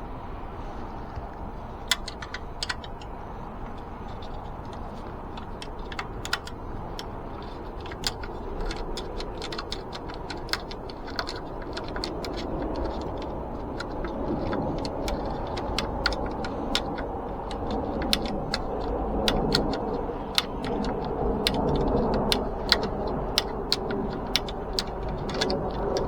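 Scattered sharp metallic clicks and clinks as a spoke is worked off a spare bicycle wheel with hand tools. The clicks come more often in the second half, over a steady low rumble that grows louder after the midpoint.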